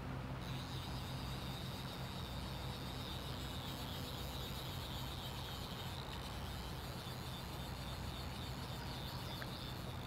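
Steady stream-side outdoor ambience: running water with a constant low hum, and a steady high-pitched chirring that comes in about half a second in.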